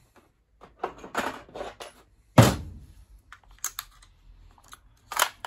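Small clicks and rattles of nails and the sliding aluminium magazine of a cordless nail and staple gun being handled while it is loaded. A single loud knock comes about two and a half seconds in, and a sharp click near the end.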